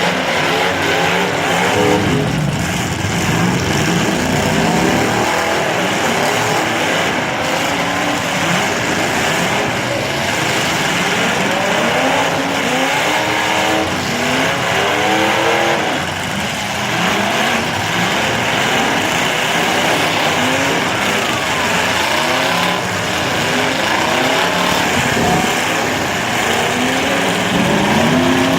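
Demolition derby cars' engines revving hard over and over, several at once, their pitch repeatedly climbing and dropping.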